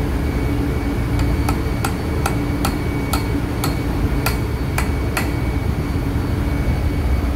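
A hammer striking a metal pipe used as a drift, about ten sharp, ringing metallic taps over some four seconds, driving a heated ball bearing onto an electric motor's rotor shaft. A steady low machinery hum runs underneath.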